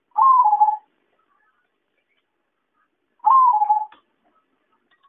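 Zebra dove (perkutut) cooing: two short calls about three seconds apart, each a brief note that steps down in pitch near its end.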